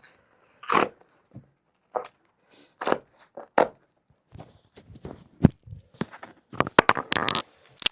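Cardboard packaging being pulled and torn open by hand at its tear strip: scattered short rips and rustles, coming faster near the end.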